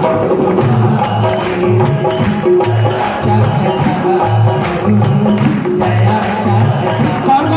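Live devotional kirtan music over a loudspeaker system: a low drum beat about twice a second, tambourine-like jingles and a held melody line.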